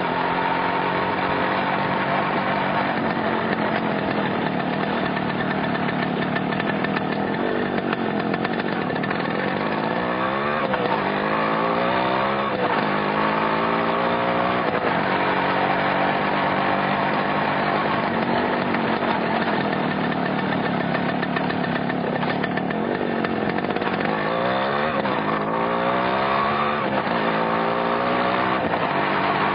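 Yamaha RX100's single-cylinder two-stroke engine running, its pitch climbing in several quick rises about a third of the way in and again near the end as the throttle is opened.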